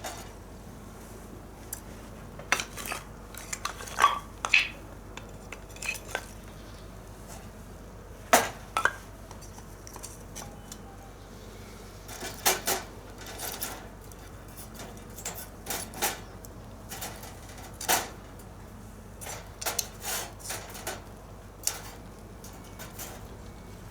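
Metal cooking utensils clinking and tapping against a pan, in irregular single knocks and quick clusters, while mushrooms are cooked over a fire.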